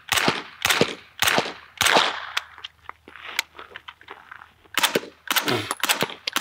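Suppressed 9mm MP5 submachine guns firing strings of single shots at a steady cadence, about two shots a second: first a standard MP5 with a B&T suppressor, then an integrally suppressed MP5 SD.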